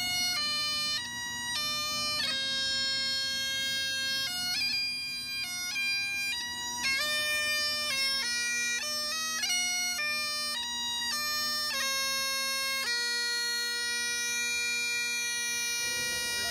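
Highland bagpipes playing a tune: the chanter's melody steps from note to note over a steady, unbroken drone.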